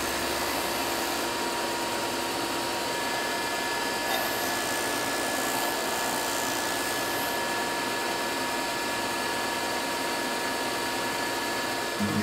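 Mastercraft disc sander running steadily as a wooden lure body is pressed against the spinning abrasive disc, giving a constant grinding hiss over the motor's hum.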